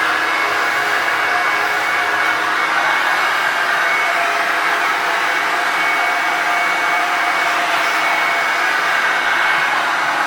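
1985 Hoover Turbopower Junior U1102 vacuum cleaner running steadily, a constant rush of air with a motor whine that wavers slightly in pitch.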